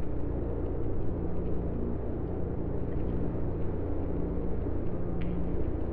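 Sonification of the Sun: a synthesized low, steady drone of deep tones over a dense noise bed, turning the Sun's light into sound.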